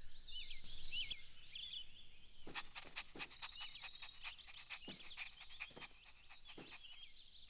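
Faint birds chirping and twittering, many short high chirps and trills in a steady outdoor ambience.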